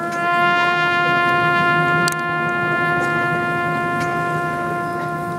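Procession band's brass holding one long, steady note, a single pitch with many overtones, a little softer after a click about two seconds in.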